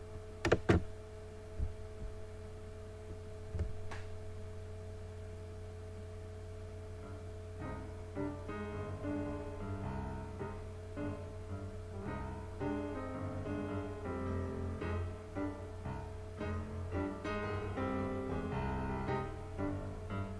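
Two sharp clicks about half a second in, then a steady hum. From about eight seconds in, solo piano music plays as the soundtrack of archival film footage.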